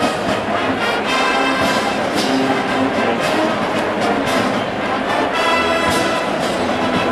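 Large military marching band playing in full: massed brass with sousaphones, trumpets and trombones over snare and bass drums.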